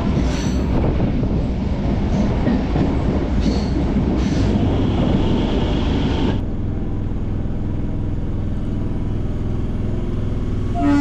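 MEMU electric passenger train running along the line: a loud rush of wheel and track noise with a few knocks. About six seconds in it changes abruptly to a quieter, steady hum.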